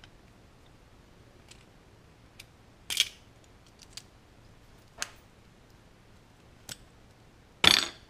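Sharp metallic clicks and clacks from pliers working a hard-drive neodymium magnet loose from its steel bracket: a handful of isolated clicks about a second apart, then a louder clack near the end.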